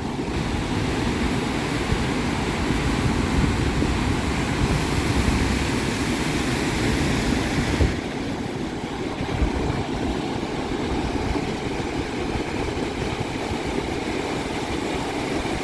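Big lake waves breaking and washing over shoreline rocks: a steady roar of surf with a low rumble, rising to a louder, hissier crash from about five to eight seconds in, then settling into a steadier wash.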